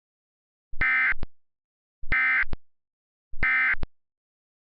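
Three short, buzzy Emergency Alert System digital data bursts, each about half a second long and about a second and a quarter apart: the End of Message (EOM) header that closes an EAS alert.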